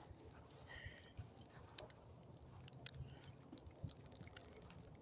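Near silence: faint outdoor ambience with a few small ticks and a faint brief high tone about a second in.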